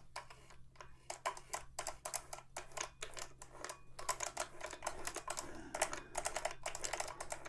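Rapid, irregular clicking and ticking from a Singer 401A sewing machine's gears and linkages as the mechanism is turned over by hand, working freshly applied grease into the clutch gear. The clicks start about a second in and grow denser midway.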